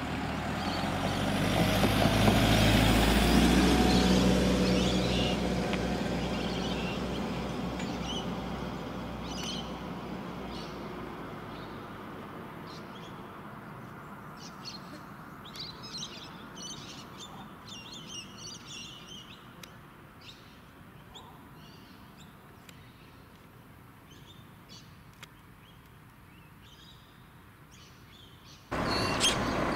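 A motor vehicle passes close by and its engine and tyre noise fade slowly into the distance. Small birds chirp over the fading sound.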